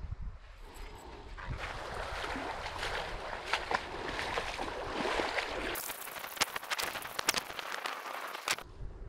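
Shallow sea water rushing, sloshing and splashing around a wading person, a steady rush full of small crackling splashes. It starts about a second and a half in and cuts off suddenly near the end.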